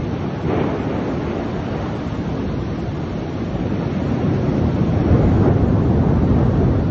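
Heavy rain pouring down with wind buffeting the microphone, a steady rushing noise that grows louder about four seconds in.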